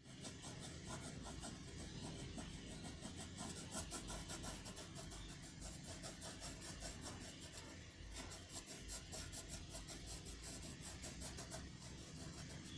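Graphite pencil scratching on paper in many quick back-and-forth shading strokes.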